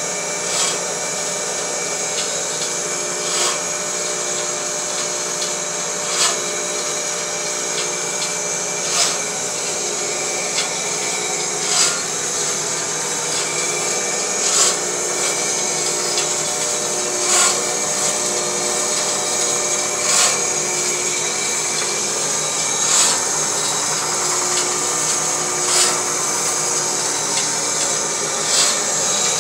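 Homemade belt-driven band saw running with no workpiece: a steady mechanical whir with several fixed tones from the motor, V-belts and pulleys and the moving blade, and a sharp click recurring evenly about every three seconds.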